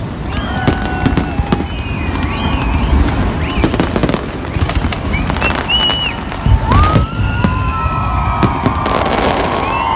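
Fireworks display: a rapid, irregular series of bangs and crackles over a continuous low rumble, with high whistling tones that rise and fall throughout.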